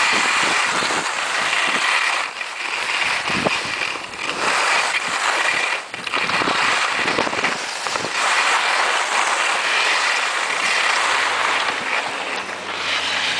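Skis sliding and scraping over packed snow, the hiss swelling and easing with each turn. A faint low steady hum comes in near the end.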